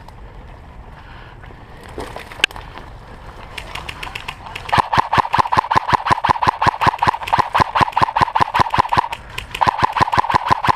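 Airsoft electric gun firing full-auto: a rapid, even rattle of shots over the gearbox motor's whine, in a long burst that pauses briefly near the end and then resumes. A single sharp click comes about two seconds in.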